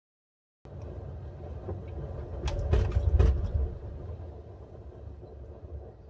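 Bosch front-loading washing machine in its 60 °C main wash, the drum turning the wet laundry: a low rumble that starts about half a second in, is loudest around the middle with a few sharp knocks, then eases off.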